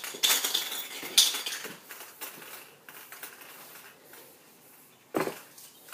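Aerosol spray-paint can being shaken, its mixing ball rattling and clicking; the rattling is dense at first and then thins out and fades. A single sharper knock comes near the end.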